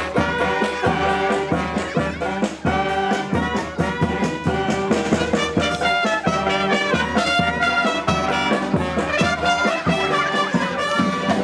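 Brass band playing live: trumpets and trombones carry the tune over a steady beat.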